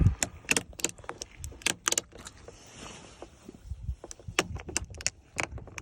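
A run of sharp, irregular clicks and taps, with a faint short hiss about three seconds in.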